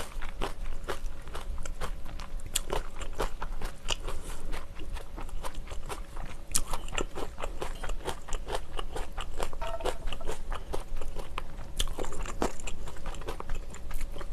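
Close-miked eating sounds: a person chewing and crunching food, with many short crisp clicks close together.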